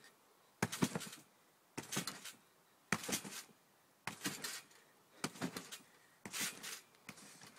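Short skis landing on a garden trampoline mat in a steady rhythm of bounces, about one a second, six landings in all. Each landing is a sharp hit followed by a brief clatter.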